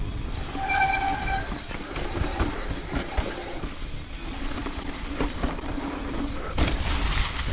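Mountain bike rolling down a dirt trail: steady tyre rumble and rattle with occasional knocks, and a brief high squeal about a second in.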